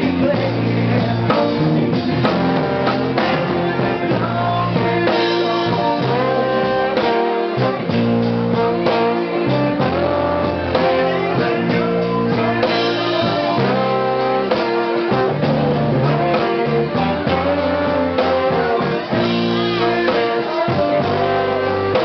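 Live band music: a trombone played into the microphone over electric guitar, bass and drums.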